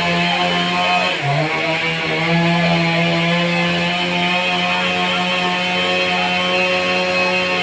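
Sawmill machine running at a steady pitch while sawing a large trembesi log; its pitch sags briefly about a second in, then recovers and holds.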